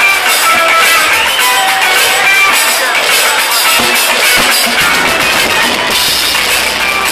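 Live rock band playing loudly: electric guitar notes over drums and cymbals.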